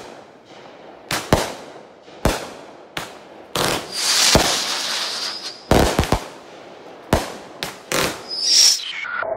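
Aerial firework shells going off: a string of sharp bangs, several in quick pairs or triples, with a stretch of hissing crackle in the middle.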